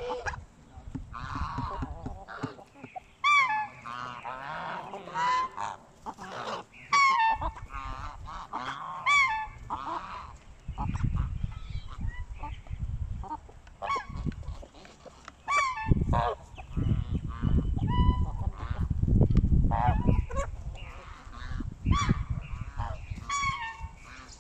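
Domestic geese honking, short calls repeating and overlapping every second or so. A low rumble runs under the calls through the middle and later part.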